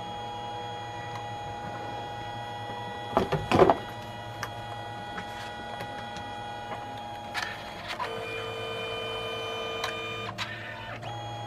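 Canon Selphy CP1300 dye-sublimation photo printer running mid-print: a steady motor whine as the paper is fed out and drawn back in between colour passes, with a lower tone joining for about two seconds some eight seconds in. A couple of sharp clicks a little over three seconds in are the loudest sounds.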